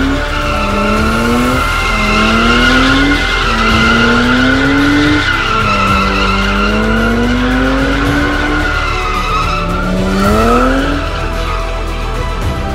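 Drift car engine revving in repeated pulls, each rising in pitch and then dropping back, about six times, the longest near the middle, over steady tyre squeal from the slide. Music plays underneath.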